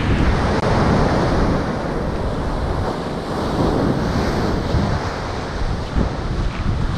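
Ocean surf breaking and washing up the beach, with wind buffeting the camera microphone as a rumble underneath.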